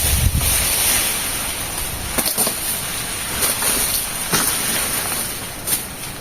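Hand clearing of peach palm brush: a steady rustle of leaves and fronds, broken by about four short, sharp blade strikes a second or so apart. Wind rumbles on the microphone at the start.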